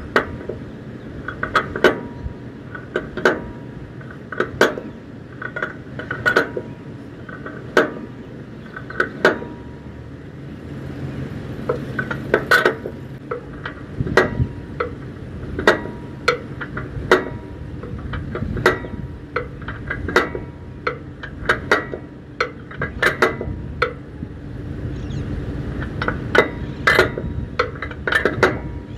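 Metal striking metal over and over, about one sharp ringing clank every second and a half, with lighter clinks in between.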